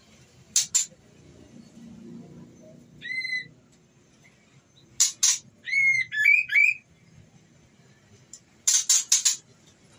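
White-rumped shama calling: clusters of sharp chip notes near the start, middle and end, a short rising whistle about three seconds in, and a quick run of whistled notes around six seconds. Offered as a female in breeding condition calling to a male.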